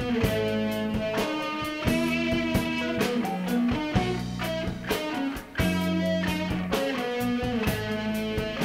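Instrumental rock band playing live: electric guitar over drums, bass and keyboards, held chords with regular drum hits and a brief break about five seconds in.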